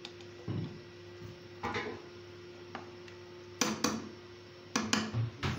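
A spoon clinking and knocking against a cooking pot, irregularly, as a chicken curry is stirred. A steady low hum runs underneath.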